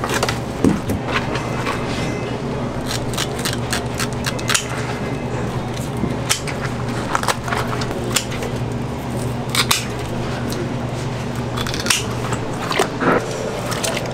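Irregular sharp clicks and knocks of fish being handled and trimmed at a market fish stall, over a steady low hum.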